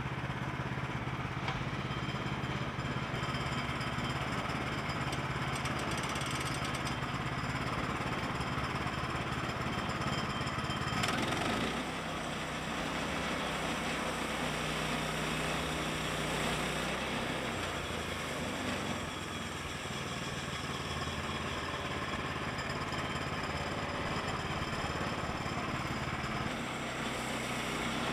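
Woodland Mills HM122 portable bandsaw mill running, its small gasoline engine driving the band blade steadily as the saw head is pushed along a log. There is a short sharp burst of noise about eleven seconds in, and the engine's note changes after it.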